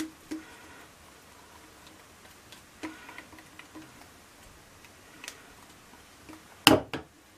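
Light scattered taps and scrapes of a silicone spatula against a stick blender's head and a plastic jug of soap batter, with one louder knock a little before the end. The blender's motor is not running.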